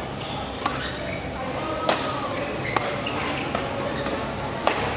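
Badminton rackets striking the shuttlecock in a doubles rally: four sharp, short hits at uneven intervals about a second or more apart, the last one near the end the loudest.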